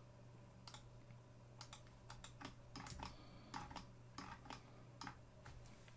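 Faint, irregular clicks of a computer keyboard being typed on.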